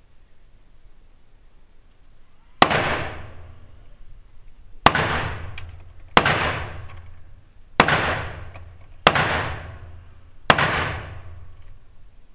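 Six single shots from an AR-15 rifle, fired slowly about one and a half to two seconds apart. Each sharp crack is followed by a short echo off the walls of the indoor range.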